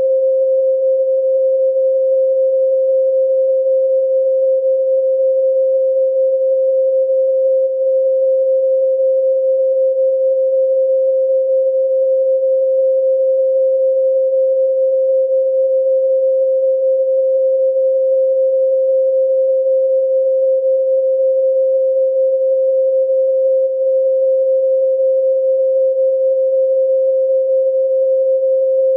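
A steady pure sine tone at 528 Hz, held unchanging at one pitch with no overtones.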